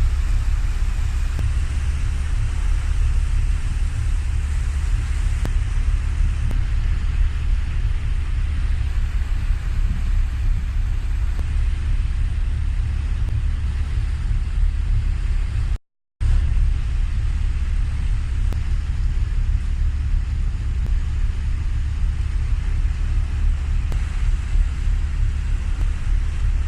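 Steady low rumble of a ferry under way, mixed with wind noise on the phone's microphone. There are no distinct thunderclaps. The sound cuts out for a moment about sixteen seconds in.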